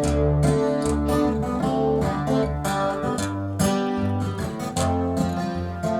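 Recorded rock song played over hi-fi loudspeakers: acoustic guitar strumming over a steady bass line, with no singing.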